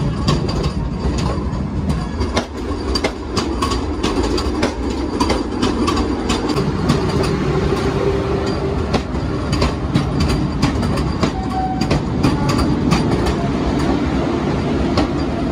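Train moving on the tracks, its wheels clicking and clattering over the rail joints under a steady rumble.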